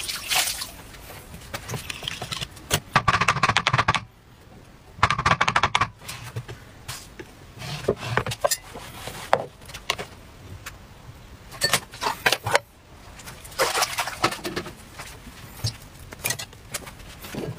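Irregular clicks, knocks and short scraping noises as an electric crepe maker and a plastic bowl of batter are handled on a wooden table, the crepe maker's plate dipped into the batter and set back down.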